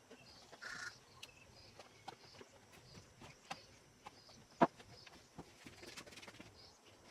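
Sparse light clicks and taps over a faint steady background, with one sharper click about four and a half seconds in and a brief hiss near the start.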